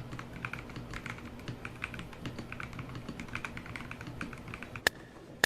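Typing on a mechanical keyboard fitted with SA-profile ABS doubleshot keycaps: a quiet, fast, uneven stream of key clacks, with two sharper clicks near the end.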